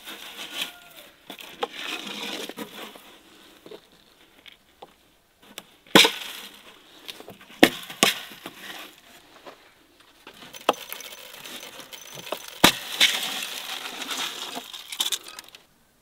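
Glass jars of grain knocking sharply against the wooden shelf of a bird feeder as they are set upside down, with a rattling rush of dried corn kernels and grain spilling out onto the wooden tray. Several hard knocks stand out, and the rush of grain comes in two spells, near the start and again near the end.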